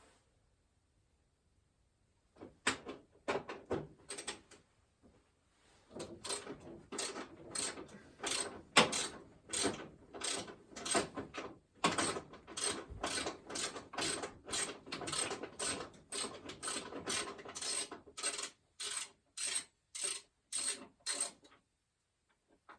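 Ratchet wrench with a 10 mm socket clicking in short back-and-forth strokes, loosening a 10 mm bolt. A few strokes come first, then a short pause, then a long run of steady strokes at about two a second that stops about a second before the end.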